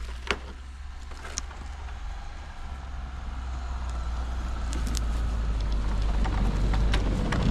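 Kei truck running as it drives over rough off-road ground: a steady low drone that grows louder through the second half, with scattered knocks and rattles.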